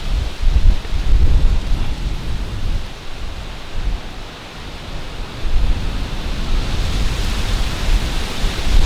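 Strong gusting wind buffeting the microphone in low rumbles, over a steady rush of wind that swells near the end.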